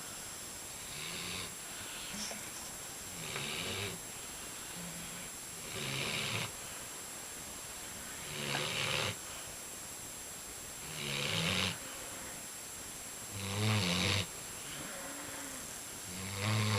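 Dog snoring quite loudly in its sleep: a rasping snore about every two and a half seconds, the snores growing louder towards the end.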